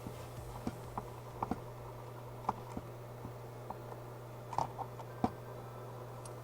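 Scattered light clicks and taps of small tools and wires being handled on a soldering bench, over a steady low hum.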